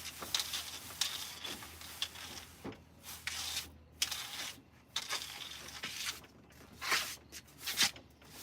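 A cloth wiping down a table top: irregular rubbing, swishing strokes with a few short sharper sounds.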